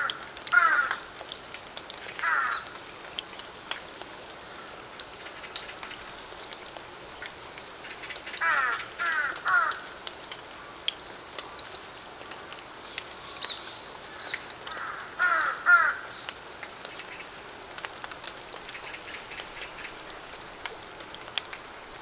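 Steady rain falling onto a puddle and wet stone paving, with scattered drips. Over it a bird calls in short groups of two or three calls: near the start, about eight seconds in, and again about fifteen seconds in.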